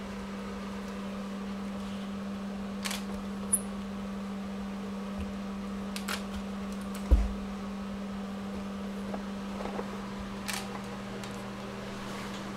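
A steady low hum runs throughout, with a few faint clicks and one low thump about seven seconds in.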